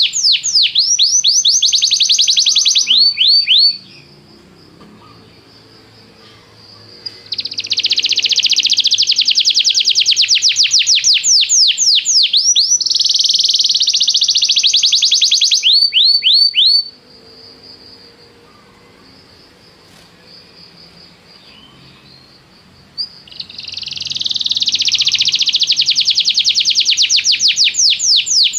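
Domestic canary singing in long rolling phrases of fast, repeated downward-sweeping notes, some phrases blurring into a buzzy trill. The song stops twice for several seconds, about four seconds in and again near the middle, then starts up again.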